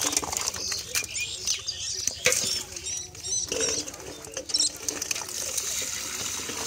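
Live fish flapping and slapping about in the catch, in short irregular bursts with sharp slaps, while small birds chirp in the background.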